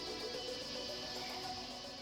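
Soft background music: sustained held tones with a steady level.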